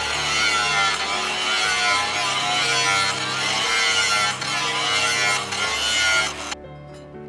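Loud rasping of a tool working the steel blade, over background music with held bass notes. The rasping cuts off sharply about six and a half seconds in, leaving only the music.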